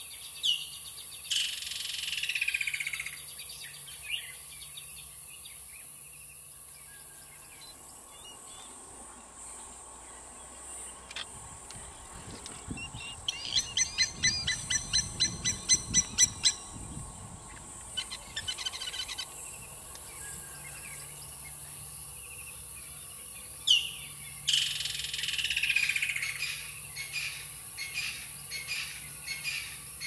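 Wild birds calling over a steady high-pitched insect hiss. In the middle, a bird gives a loud run of repeated notes, about three a second, for several seconds.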